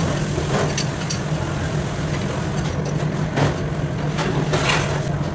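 A steady low mechanical hum, with short hissing bursts a few times.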